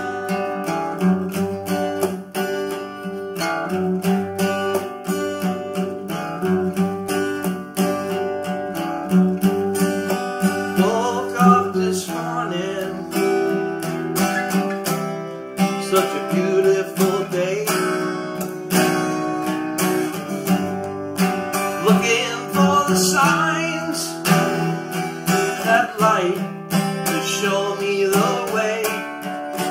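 Acoustic guitars, a 12-string and a 6-string, strumming and picking an instrumental passage. From about ten seconds in, a higher melody line with sliding notes plays over the strummed chords.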